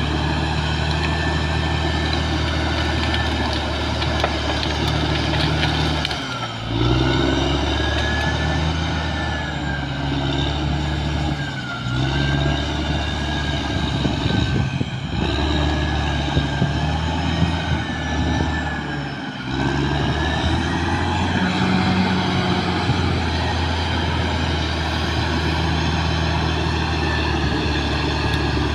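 Caterpillar D6R XL bulldozer's diesel engine running steadily, its note dipping briefly a few times. A high wavering whine rides over it from about a fifth of the way in until about two-thirds through.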